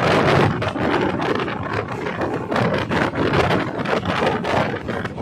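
Diesel railcar train running along the line, heard from on board: a steady loud rush of noise with irregular rattling and clattering of the carriage.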